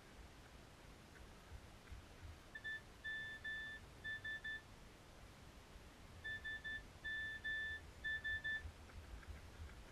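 Electronic beeping at one high pitch, in a short rhythmic pattern of quick and longer beeps that plays twice, a few seconds apart, over a faint low rumble.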